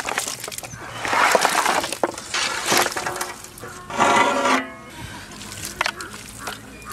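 Handfuls of chopped raw stingray meat tumbling into a metal pot and being turned over by hand. There are three noisy, wet rushes of under a second each, then a few light knocks near the end.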